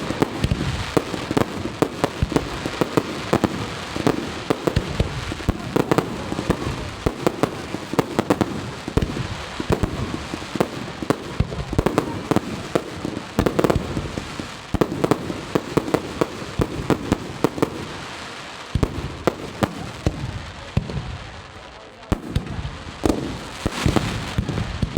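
Aerial fireworks display by the RICASA pyrotechnics company: a dense run of shell bursts and crackling reports, one bang after another, easing off briefly about three-quarters of the way through before the bangs pick up again.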